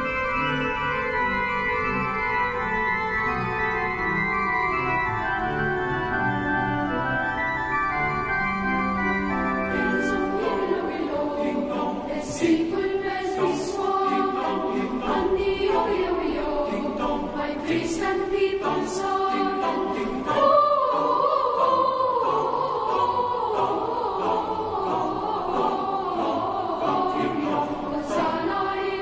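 Pipe organ playing sustained chords; a choir joins about ten seconds in, singing a carol over the organ.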